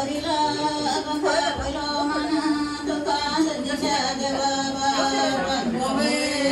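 Several voices singing a song together, with long held notes.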